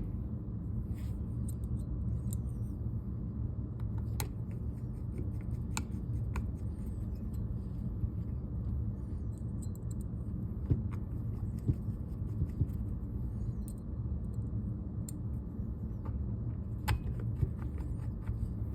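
Scattered light clicks and taps as the grip panels are fitted back onto a paintball marker and their screws are handled, over a steady low rumble.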